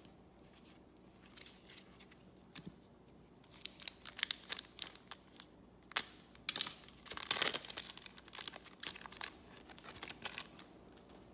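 Foil trading-card pack being torn open and crinkled: a run of sharp crackles that starts a few seconds in, is loudest near the middle and dies away near the end.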